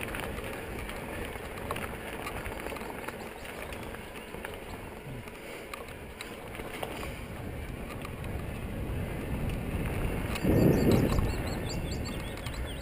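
Mountain bike rolling fast over a gravel forest track: a steady rush of tyre noise and rattle mixed with wind buffeting the camera microphone, with a louder low thump or gust about ten and a half seconds in.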